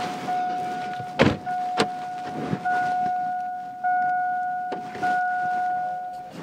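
A car's electronic warning chime: one steady tone that rings again about every 1.2 s, fading a little each time. A thud and a sharp click come about a second in.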